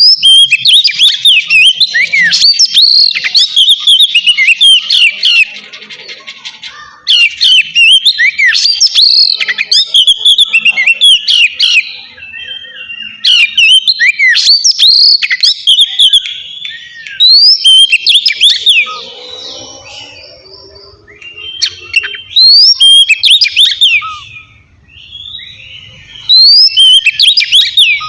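Oriental magpie-robin (kacer) singing loud 'ngeplong' song: phrases of quick, clear whistles that sweep sharply up and down, each lasting a few seconds, with short pauses between them.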